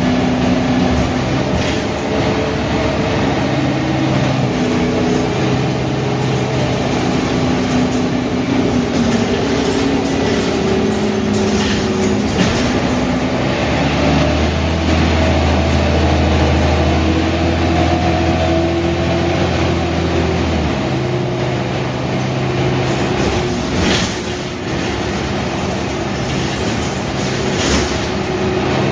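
Mercedes-Benz O345 Türk city bus's straight-six diesel engine running in service, its note stepping up and down in pitch as it pulls away, runs and slows. A steady low drone from about halfway in lasts several seconds, and a few sharp knocks or rattles come through.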